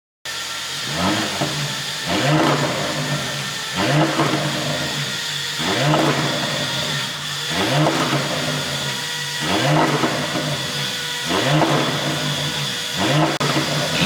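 Porsche Panamera 4 E-Hybrid's twin-turbo V6 revved in about seven quick blips, one every couple of seconds, with crackling and popping from the exhaust as the revs drop after each blip. The pops come from an ECU tune that adds overrun pops.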